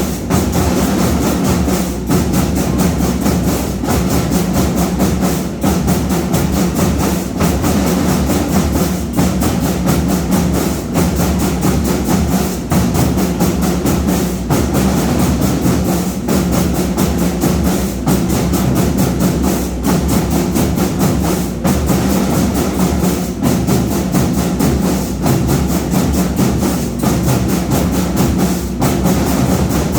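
Marching band playing, with drums and percussion keeping a steady, fast beat.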